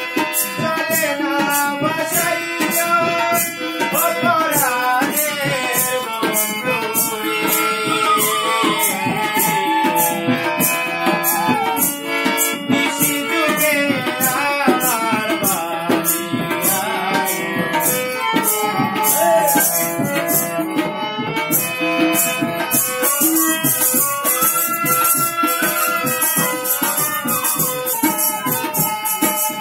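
Bengali folk song played live on harmonium and hand drums, with a singing voice and jingling hand percussion keeping a fast, even beat. The jingling grows louder in the last third.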